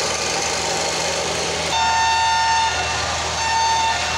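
Two departure whistle blasts from the train: a steady tone about a second long, then a shorter one. They sound over the steady hum of the waiting train's diesel engine.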